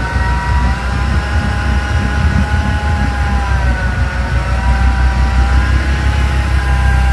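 Flatbed truck's engine running under load in the water at a boat ramp: a steady low rumble with a whine that slowly wavers in pitch.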